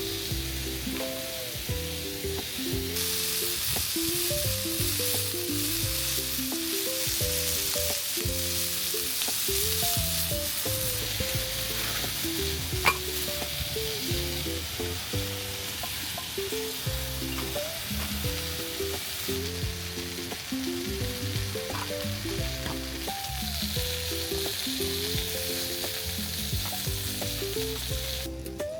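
Food sizzling in a pan, a steady hiss that grows stronger about three seconds in, under instrumental background music playing a melody of short notes.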